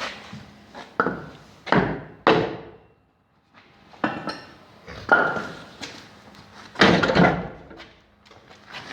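A series of heavy knocks and clunks, like metal parts being struck or handled: three close together, then two more a few seconds apart, each with a short ring. There is a brief total drop-out between them.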